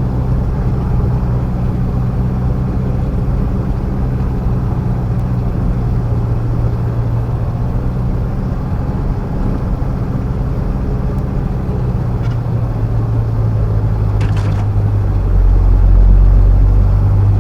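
Mitsubishi L200 pickup driving, a steady low engine and road drone heard from inside the cab, growing louder near the end.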